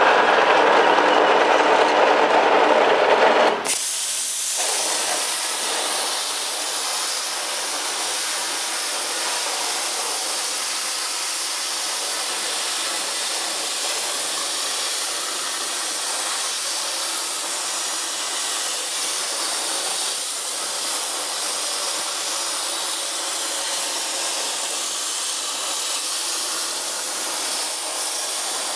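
Plasma torch on a CNC cutting table cutting sheet metal. A loud start lasts about four seconds, then the arc and air settle into a steady hiss.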